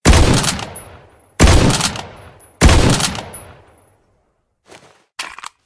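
K14 sniper rifle sound effect: three loud shots about a second and a third apart, each trailing off in a long echoing tail. A few quieter mechanical clicks follow near the end.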